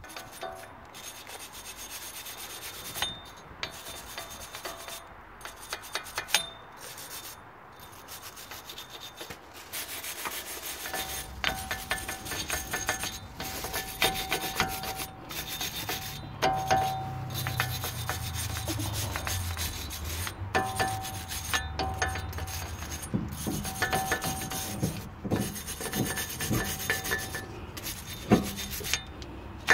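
Steady scraping and rasping of a tool worked against the rusty metal face of a car's front wheel hub, with scattered clinks and scrapes. It gets louder from about eleven seconds in, with a low hum under it.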